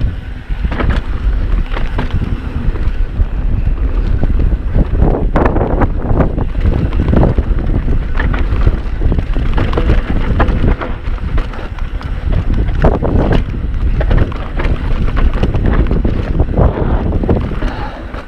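Wind buffeting an action camera's microphone during a fast mountain-bike ride, with tyres rolling on the trail and repeated irregular knocks and rattles from the bike over bumps.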